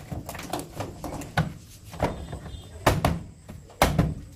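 A few sharp knocks and clatters, the loudest two near the end, as the hinged plastic top panel of a washing machine is handled. A nylon raincoat rustles close to the microphone between them.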